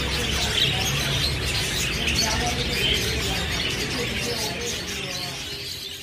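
Many small birds chirping and twittering at once, a dense flock chorus that fades out near the end.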